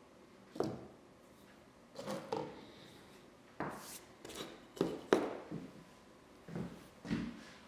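Hand tools and loose plane parts being set down and shifted on a wooden workbench: about ten short clacks and knocks in small clusters, with quiet between them.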